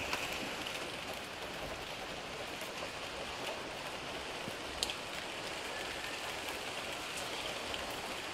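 Steady rain falling, an even hiss with one sharper tick about five seconds in.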